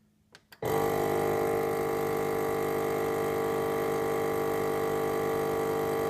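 Foodsaver V2490 vacuum sealer: a couple of faint clicks, then about half a second in its vacuum pump motor starts and runs with a steady drone. The pump runs on without completing, because the leaky foam door seals still don't hold a vacuum.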